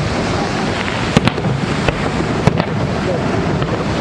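Fireworks bursting: about four sharp bangs in the middle second or so, two of them close together, over a steady rushing noise.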